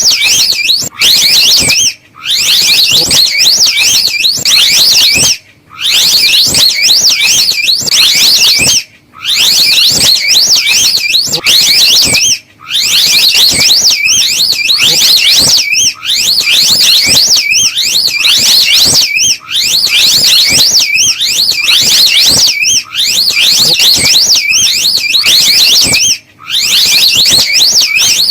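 Slow loris call as played from a lure recording: a loud, high, rapidly wavering trill repeated in phrases of about three seconds with short breaks between them.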